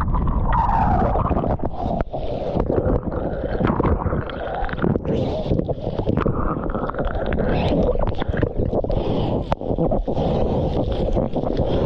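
Churning whitewater rushing, gurgling and splashing around a waterproof action camera as it goes under and breaks the surface in the surf, with many short knocks and crackles of water hitting the housing.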